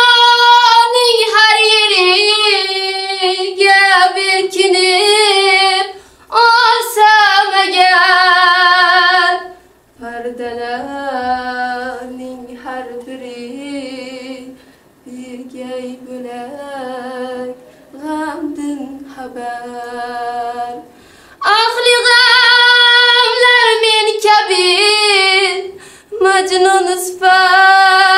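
A woman singing solo without accompaniment: long, wavering, ornamented notes in separate phrases. About ten seconds in the melody drops lower and softer, and a little after twenty seconds it rises back high and loud.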